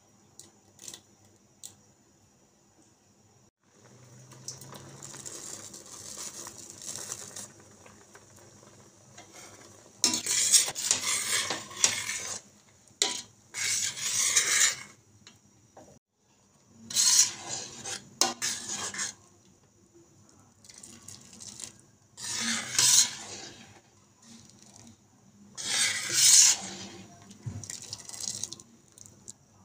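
Metal ladle stirring and scraping against the sides of a steel pot of milk and vermicelli, in about five loud bursts with short pauses between them, quieter during the first several seconds.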